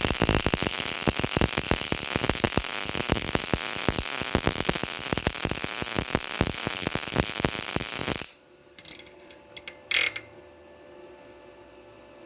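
PrimeWeld MIG 180 welding a fillet bead on 20-gauge mild steel: a loud, steady crackle from the arc that cuts off suddenly about eight seconds in, the wire stick-out a bit long by the welder's own reckoning. A few faint clicks follow over a steady low hum.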